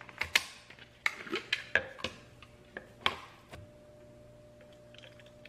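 Sharp plastic clicks and knocks, about ten in three and a half seconds, as a plastic sippy cup is twisted apart and its pieces and a plastic milk jug are handled on a granite countertop. After that a faint steady hum is left.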